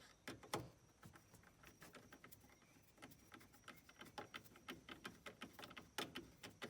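Faint clicks and taps of a screwdriver and plastic switch-mount parts being worked on a steering column. There are a few sharper clicks at first, then an irregular run of about three to four small clicks a second.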